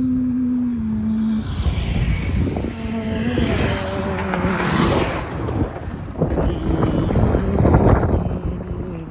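A motor vehicle passing close on the road, its noise swelling to a peak about five seconds in and then falling away, with wind buffeting the microphone.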